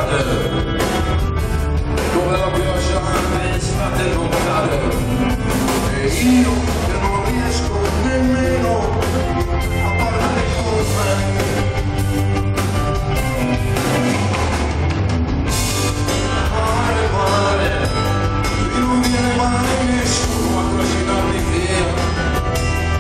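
Rock band playing live at a steady, loud level: electric guitars, bass and drums, heard from the audience.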